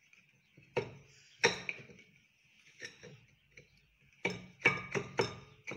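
Sharp metal clicks and taps as small parts are fitted by hand onto a Renault Energy engine block during reassembly. A few scattered clicks come first, then a quick run of about five near the end.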